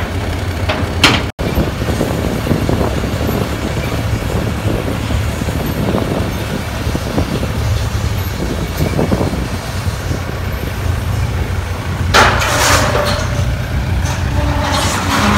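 Mobile crane's diesel engine running steadily as it lifts a catamaran, with a burst of hiss about twelve seconds in.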